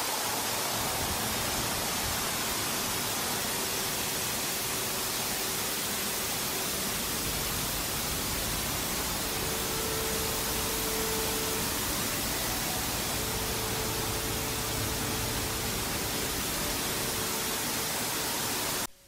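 Steady, even rushing noise with a faint hum through it, cutting off suddenly near the end.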